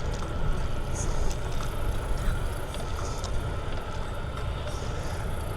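Steady wind rumble on a windscreened clip-on microphone, mixed with tyre noise from a Trek Dual Sport hybrid bicycle rolling along, with a few faint clicks.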